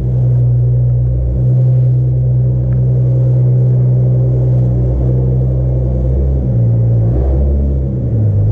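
Nissan GT-R engine idling steadily through its titanium exhaust, with the note wavering briefly near the end.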